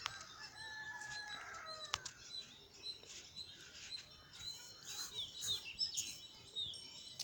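Faint background of small birds chirping, with a rooster crowing once, held for about a second and a half, near the start. Two sharp clicks, one at the very start and one about two seconds in.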